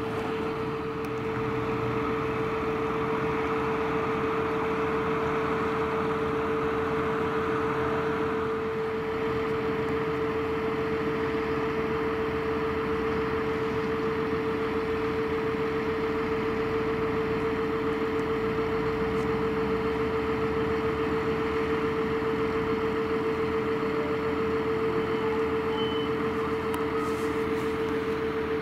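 Tractor engine running steadily at constant revs with a strong, unchanging whine.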